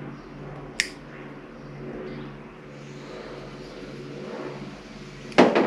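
A steady low rumble with a single sharp click about a second in. The click comes from trimming the locking ears on a turn signal connector terminal so that it will seat in the connector.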